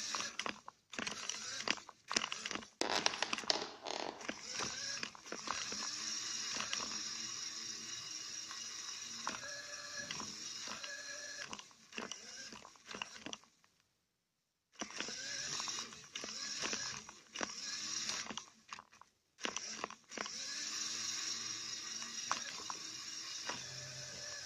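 Electric motors and plastic gear train of a Lego RC car whining and rattling as it drives, heard close up from a camera riding on the car. The whine rises and falls as it speeds up and slows, with sharp knocks in the first few seconds. It cuts out completely twice, about 14 and 19 seconds in.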